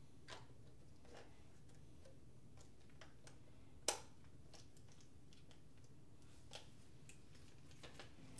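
Faint clicks and handling noises of a camera being handled out of a cardboard box, with one sharp click about four seconds in, over a quiet room.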